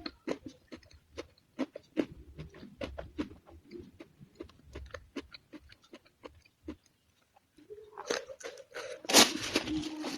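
Close-up crunchy chewing of raw vegetables: many quick crisp crunches and mouth clicks. Near the end comes a louder stretch with a held low tone and one loud burst about nine seconds in.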